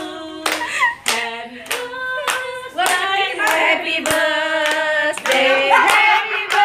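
A group of women singing a birthday song together while clapping along in time, about two claps a second.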